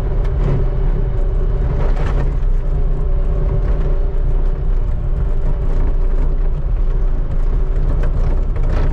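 Skid steer's engine running steadily under load, a low drone with a steady whine over it.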